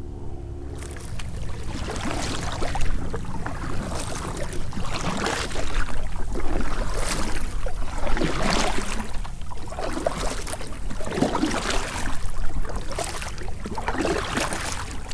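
Water splashing and sloshing against a kayak in wind-whipped chop, coming in irregular surges every second or two.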